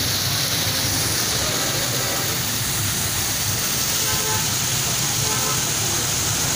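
Strong flow of water pouring down a stacked-stone garden waterfall and splashing into a pond: a steady, loud rushing splash.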